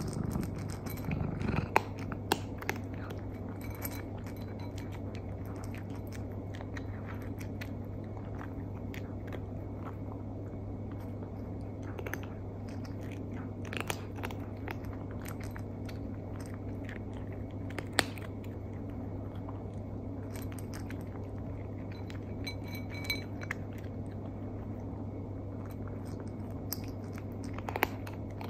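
A cat eating, with a few scattered crunches and clicks over a steady low hum.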